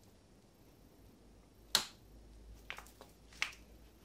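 Handling of a 1 kg bag of sugar as it is set on top of the stacked weights loading the bridge: one sharp click a little under two seconds in, then a few lighter clicks and knocks.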